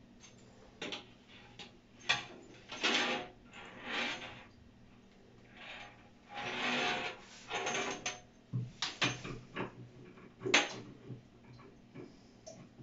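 Handling noise from fitting a shower hose and its connector by hand: irregular scraping and rubbing of the flexible metal hose and fittings, with a few sharp clicks, the loudest about ten seconds in.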